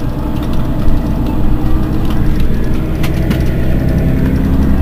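Mercedes-Benz Citaro Facelift city bus engine idling steadily while the bus stands still, with a few light clicks about two to three seconds in.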